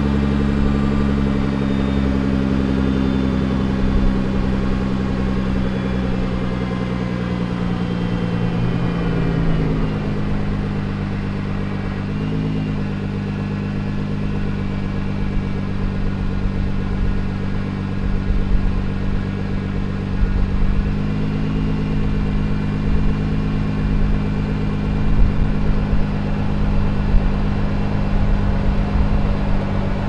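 Stock 2024 Nissan GT-R's twin-turbo 3.8-litre V6 idling, heard at the exhaust tips. The idle speed drops gradually and settles lower about ten seconds in, then rises slightly about twenty seconds in.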